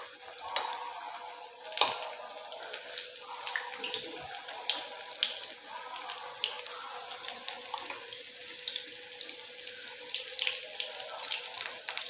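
Battered eggplant pakoras deep-frying in hot oil in a kadai: a steady sizzling hiss full of small crackles and pops, with one sharper pop about two seconds in.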